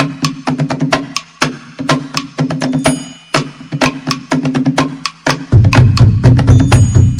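Percussion-driven dance music: quick, sharp wooden and drum strikes over a steady low pitched line, with a heavier, louder low drum layer coming in about five and a half seconds in.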